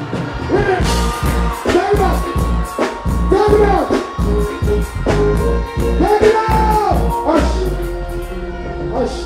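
Live reggae music played loud through a concert sound system: a sung vocal line over a heavy bass line and a steady beat.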